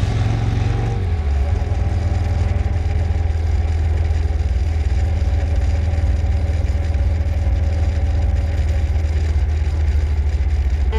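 Motorcycle engine running at road speed, a steady low rumble over road and wind noise; the engine note shifts lower about a second in.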